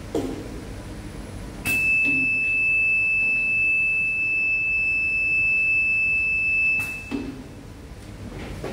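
A metal detector's alarm buzzer sounds one steady, loud, high-pitched tone for about five seconds, the sign that it has detected metal in a contaminated test sample and is triggering rejection. A short knock comes just before the tone, and another shortly after it stops.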